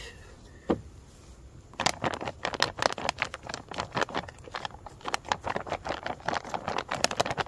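Sealed ReadyWise freeze-dried meal pouch crinkling as it is kneaded by hand to mix the just-added water through the meal. A dense run of crackling starts about two seconds in, after a single click.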